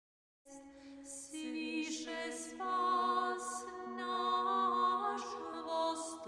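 Intro music: an a cappella choir singing slow, held chords that change every second or so, starting about half a second in.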